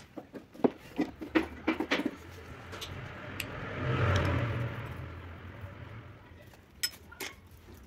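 Metal hand tools clicking and clinking as they are handled and set down on a wooden bench during the taking apart of a car starter motor, with a quick run of sharp knocks in the first two seconds. In the middle a rumbling noise swells up and fades over about three seconds, and two more sharp clicks come near the end as the starter housing is handled.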